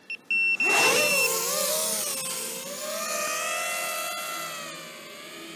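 A few short electronic beeps and then a steady beep, as an FPV quadcopter's brushless motors and propellers spin up about a second in. The motor whine wavers in pitch with the throttle, then holds steady and grows fainter near the end as the drone flies off.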